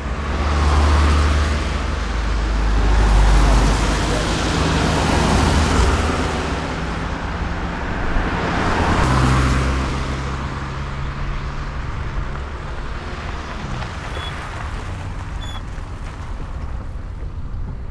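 Road traffic: several cars passing one after another, a rush of tyres and engines that swells and fades with each pass.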